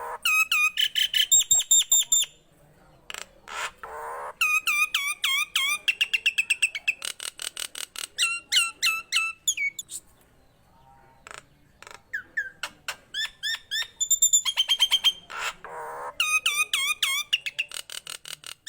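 Nias hill myna singing: fast runs of short, loud, hooked whistled notes, several a second, in three bursts with brief pauses between.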